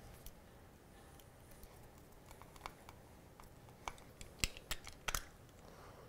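Small clicks and taps from hands and a screwdriver working on a compact industrial limit switch, its cover and screws being handled. There are a few faint clicks at first and a cluster of sharper clicks between about four and five seconds in.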